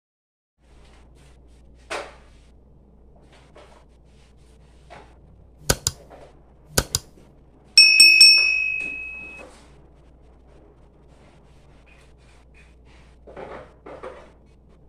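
Kitchen items being handled while tidying up: a few sharp clicks and knocks, then about 8 seconds in a loud clink of metal or glass that rings on for about a second and a half, and two softer knocks near the end, over a low steady hum.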